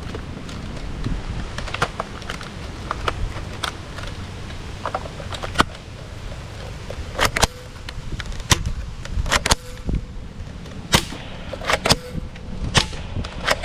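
Toy guns firing: a string of sharp clicks and snaps at uneven intervals, louder and more frequent in the second half, a few leaving a brief ringing tone.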